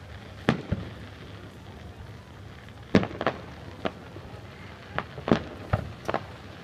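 Distant aerial fireworks going off: about ten irregular sharp bangs, some single and some in quick pairs, over a steady low background hiss.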